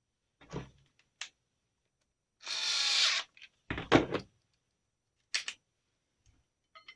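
Metal parts of a Pieper M.1912 .22 rifle being handled and fitted during reassembly: a thump, a small click, a scrape lasting nearly a second, a heavy knock, then two quick clicks.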